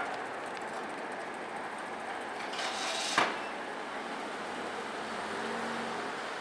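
Street and traffic noise at a railway level crossing just after the warning bell has stopped, with a hiss that builds into one sharp click about three seconds in.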